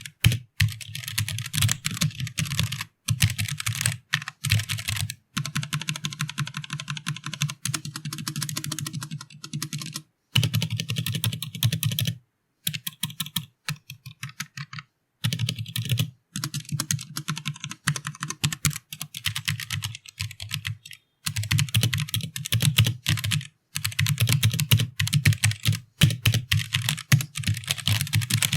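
Ant Esports MK1300 Mini mechanical keyboard with linear Outemu Red switches being typed on: quick runs of key taps in bursts of a few seconds, broken by short pauses.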